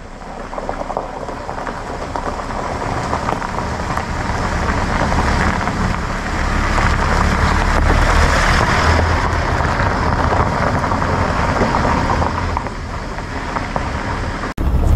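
Hyundai Porter II light truck driving slowly on a gravel road close past the microphone: tyres crunching over the gravel above a low engine rumble. The sound grows to a peak about eight seconds in as the truck passes, then eases off.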